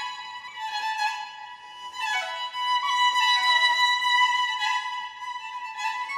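Background music: a melody on violin and flute-like instruments.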